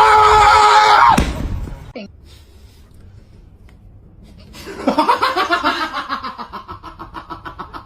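A loud, held cry that cuts off about a second in, then after a quiet pause a person laughing in quick, rapid bursts that gradually fade.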